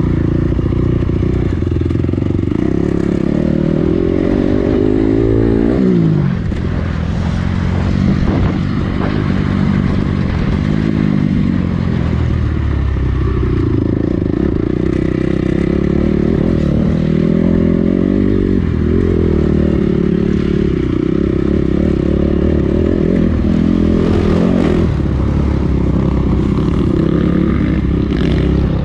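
2007 Honda CRF four-stroke motocross bike with an Akrapovič dual exhaust, ridden hard on a dirt track: the engine revs up and drops back again and again through corners and straights.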